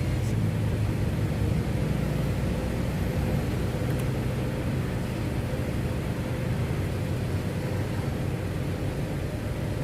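Steady low rumble of a running machine, with a faint steady hum above it.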